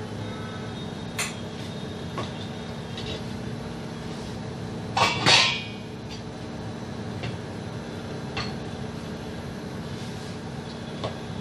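Metal spoon and spatula knocking and scraping on an iron tawa while a stuffed kulcha cooks: a few light clicks, and one louder clatter about five seconds in, over a steady hum.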